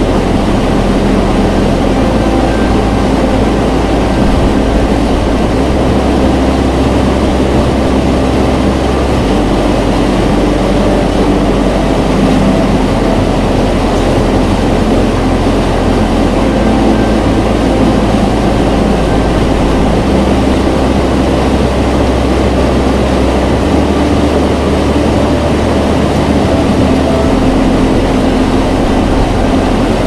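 Waterfall roaring: a loud, steady rush of falling water.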